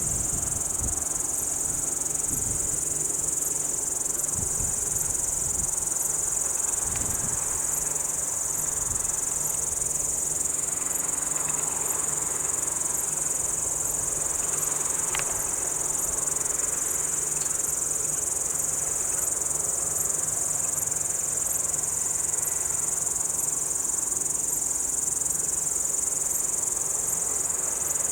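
A chorus of many crickets chirping in one dense, unbroken high trill, with faint regular ticks above it about once a second. A few low rumbles come in the first several seconds.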